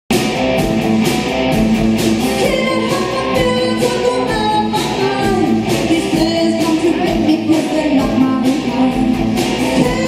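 Rock band playing live: vocals over electric guitar, bass and drums, loud and steady.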